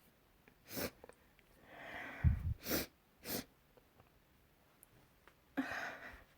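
A person sneezing: a rising inhale builds into a sharp sneeze a little over two seconds in, the loudest moment, followed by two quick sharp breaths and another breathy outburst near the end.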